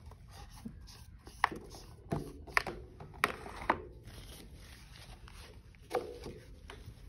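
Paintbrush being rinsed and knocked against a plastic water tray: a run of about five short sharp taps in the first four seconds, then one more knock about six seconds in.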